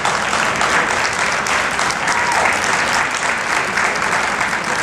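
A large crowd applauding steadily, a dense, continuous clatter of many hands clapping.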